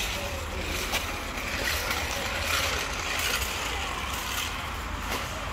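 Street background noise: a vehicle engine running in traffic, a steady low rumble under a general hiss.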